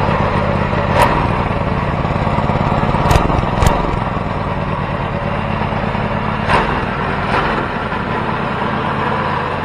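Homemade 424cc inline twin-cylinder engine, built from two coupled Predator 212 single-cylinder engines, running steadily on an engine stand. A few sharp cracks stand out over the engine note, the loudest about a second in and about three and a half seconds in.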